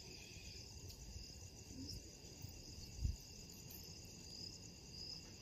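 Field crickets chirping in a faint, steady high-pitched trill, with a soft low thump about three seconds in.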